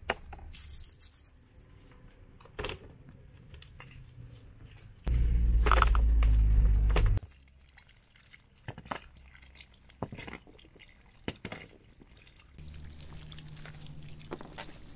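Water poured over peeled onions in a plastic colander, with a loud rush lasting about two seconds near the middle, and scattered sharp clicks of a knife peeling and trimming onions.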